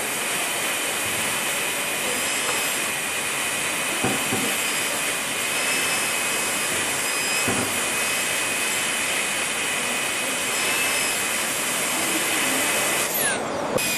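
High-speed air-turbine dental handpiece running steadily as its bur cuts a typodont tooth for a bridge abutment preparation: a constant rush of air with a thin high whine. Near the end the whine falls away as the turbine stops.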